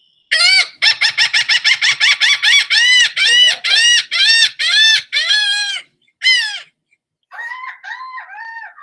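Recording of a laughing gull giving its laughing call: a loud run of arched 'ha' notes, about four a second at first, then slower and more drawn out. Fainter, wavering gull calls follow near the end.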